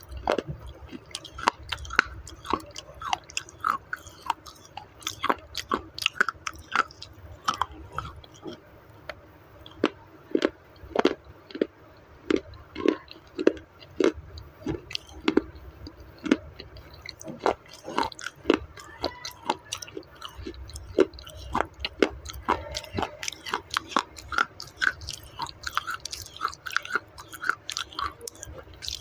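Crunching and chewing of hard, dry clay roti pieces right at a clip-on microphone: an irregular run of sharp cracks, several a second, as the brittle baked clay is bitten and ground between the teeth.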